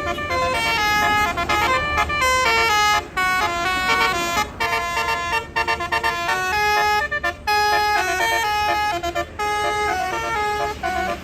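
Bus's Basuri multi-tone 'telolet' horn playing a tune of short held notes that step up and down in pitch, over a low rumble.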